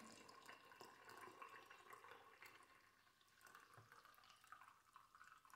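Faint pouring: liquid running from a flask into a ceramic mug, with a few small drips.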